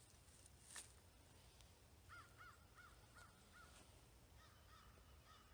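Faint, distant bird calls over a quiet outdoor background: a quick run of about five short calls about two seconds in, then a few fainter ones near the end.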